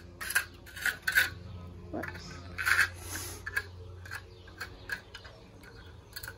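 Hand trowel scraping and clinking against wet mortar and a metal hammock hook on a cinderblock wall: a run of short scrapes and taps, with one longer scrape near the middle.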